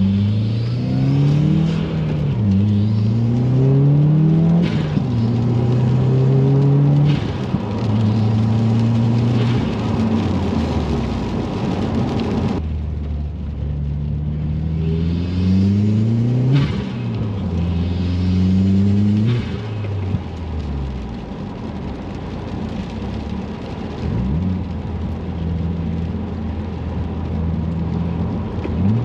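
Turbocharged 2.0-litre flat-four of a 2018 Subaru WRX accelerating hard through the gears twice, the engine note climbing and dropping back at each upshift, with a whoosh from the aftermarket aluminium turbo inlet swelling as boost builds. In between and near the end it settles to a steadier, lower drone.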